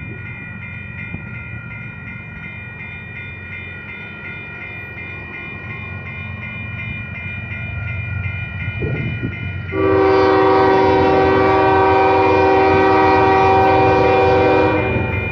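Grade-crossing bell ringing steadily over the low rumble of approaching diesel freight locomotives, which grows louder. About ten seconds in, the lead locomotive sounds its air horn in one long chord of about five seconds, the loudest thing heard, and it cuts off near the end.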